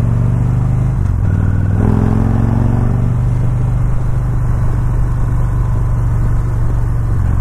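Touring motorcycle engine running steadily under way, heard from the rider's seat. The engine note dips briefly about a second in, then picks up again.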